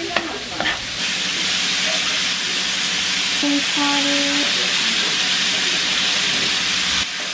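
Ground beef with onion and green pepper sizzling in a frying pan, a steady hiss; a metal spoon clicks against the pan a couple of times near the start.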